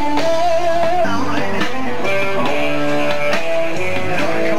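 Rock music with electric guitar playing a melody over a steady backing.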